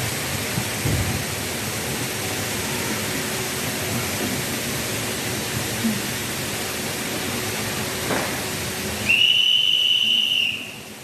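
Steady street-crowd noise, then about nine seconds in a single long, steady, high whistle blast lasting about a second and a half.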